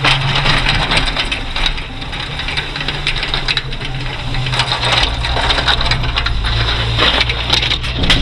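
Jeep CJ7 plow truck's engine running with a steady low drone, under continuous crunching, scraping and rattling as the plow blade pushes snow.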